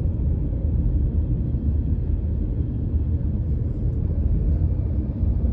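Steady low rumble of a car's engine and tyres on the road, heard from inside the cabin while driving at low city speed.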